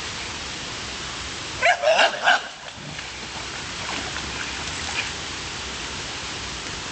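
A puppy barks three times in quick succession about two seconds in, over a steady hiss.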